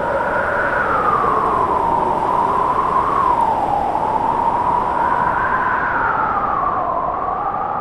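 Blizzard wind howling, a continuous moaning of a few pitches that drift slowly and unevenly up and down over a steady rushing hiss.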